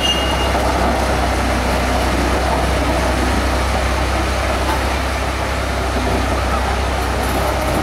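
Diesel engine of a road-rail track maintenance vehicle running steadily as it drives away along the rails on its rubber tyres.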